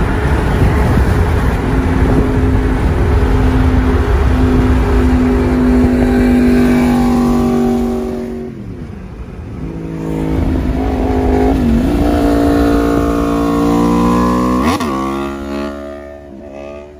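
Sport motorcycle engine running at high revs close alongside, its note holding steady, falling away about eight seconds in, then climbing again before dropping sharply near the end as the throttle is closed. Wind rushes over the microphone at the open car window at highway speed.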